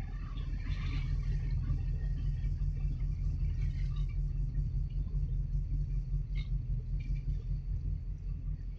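Steady low rumble of a container port, with faint scattered clatter above it.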